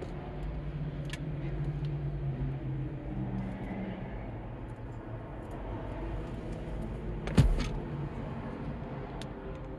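Volkswagen GTI Mk7's turbocharged 2.0-litre four-cylinder engine running steadily at low revs, with a single sharp thump about seven seconds in.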